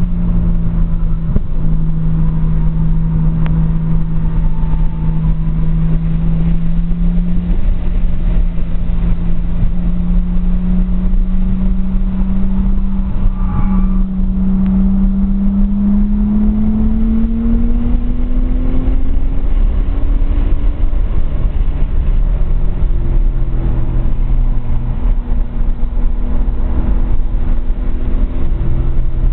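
Nissan RB20DET turbocharged straight-six in a 240SX, heard from inside the cabin on track. The engine note steps down and back up early on, then climbs steadily for several seconds under acceleration before dropping at a gear change about two-thirds of the way in. Heavy wind and road noise run underneath.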